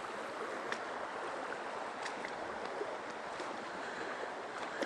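Steady rush of a mountain stream's flowing water, with a few faint clicks.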